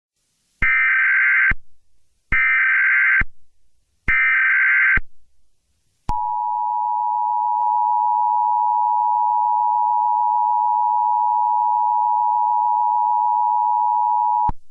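Emergency Alert System header: three short bursts of warbling digital SAME data tones, about a second each, then the two-tone EAS attention signal held steady for about eight seconds before cutting off.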